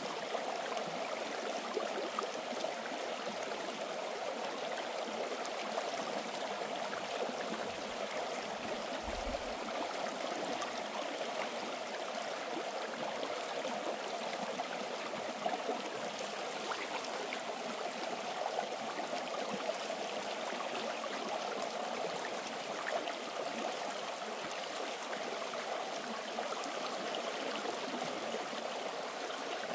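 Stream water running steadily, an unbroken rush of flowing water.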